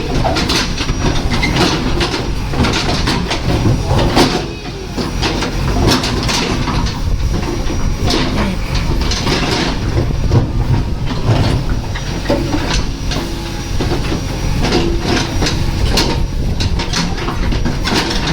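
JCB 3DX backhoe loader's diesel engine running under load, with repeated metallic clanks and knocks throughout and a brief drop in level about four seconds in.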